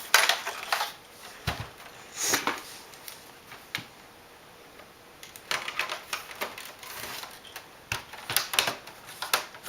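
Plastic clicks and snaps from an Xbox 360's detachable faceplate being fitted back onto the console's casing: a few separate clicks at first, then a quick run of clicking in the second half.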